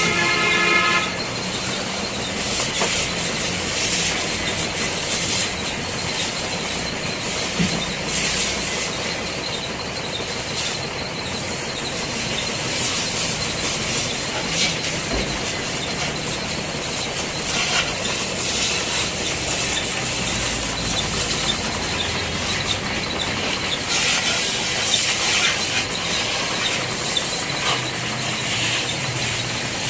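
Pressure-washer water jet spraying a motorcycle: a loud, steady hiss with louder surges now and then as the spray moves over the bike.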